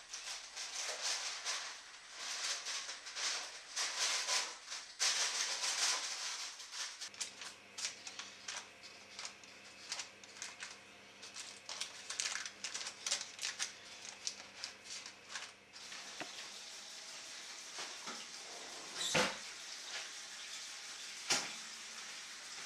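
Parchment paper crinkling and rustling in irregular bursts as it is pressed into a baking tin. About two-thirds of the way in this gives way to a steady hiss, broken by two sharp knocks.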